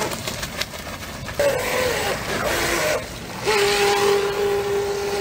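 Whine of a radio-controlled electric speedboat's motor running at speed, with a hiss of water off the hull. The pitch wavers and falls in the first half, the sound drops away briefly about three seconds in, then a steady whine holds to the end.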